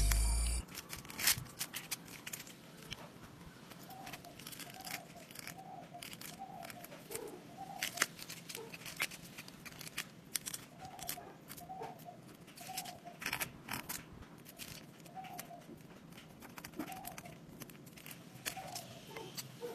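A wooden spatula stirring and scraping dry granulated sugar in a small aluminium pan, giving irregular gritty scrapes and clicks. The sugar is still dry, heating over a very low flame before it melts.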